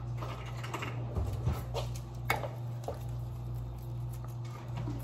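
Kitchen scissors snipping chives: scattered light clicks and snips, heard over a steady low hum.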